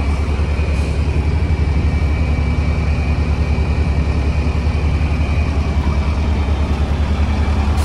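Douglas TBL280 towbarless pushback tractor's engine idling steadily, a fast, even low pulsing, with a thin high whine over it that fades out near the end.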